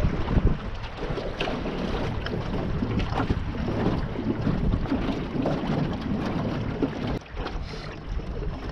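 Wind buffeting the microphone over the steady running of a small john boat's motor under way on the water.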